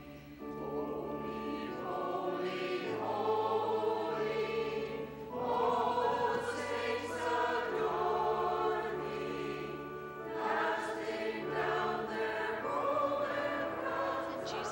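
Choir singing a slow piece, with long held low bass notes underneath that change every second or two.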